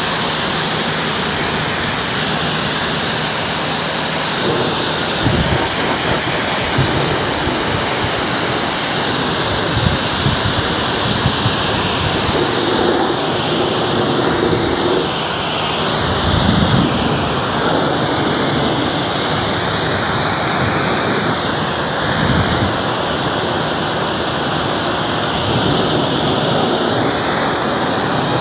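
Pressure washer spraying a high-pressure jet of water onto a mower: a loud steady hiss whose tone shifts as the spray sweeps across the machine.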